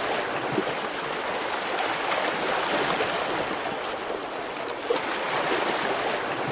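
Steady rush of water.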